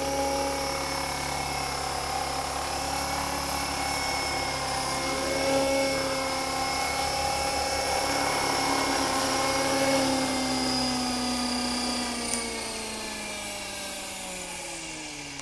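Electric Align T-REX 450 radio-controlled helicopter hovering, with the steady high whine of its motor, gears and spinning rotor. Near the end the pitch slides down and the sound fades as the rotor spools down after it sets down on the grass.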